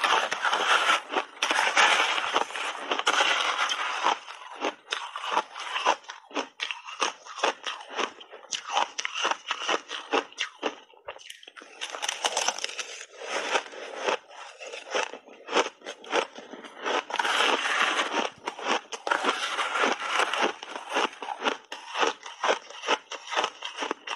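Close-miked crunching of refrozen purple crushed ice being bitten and chewed: dense crackling in three loud spells, with scattered sharp cracks between.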